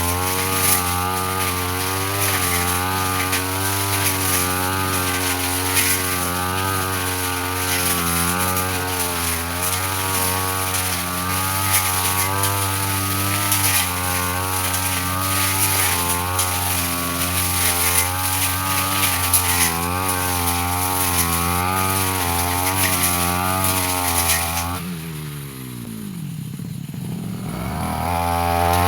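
Two-stroke brush cutter running at working speed, its revs wavering as it cuts through grass and brush. About 25 seconds in the throttle is released and the engine winds down toward idle, then it revs back up near the end.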